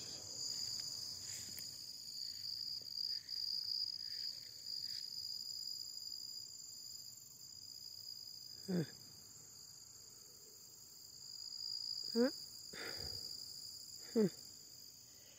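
Night insects, such as crickets, trilling steadily in a high, even chorus. Three short, sliding calls cut through it, about nine, twelve and fourteen seconds in.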